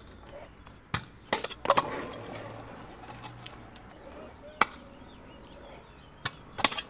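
Stunt scooter wheels and deck clacking on concrete: a series of sharp clacks as the scooter pops and lands, with wheel rolling noise after the first few. More clacks follow near the end as it hits the concrete box.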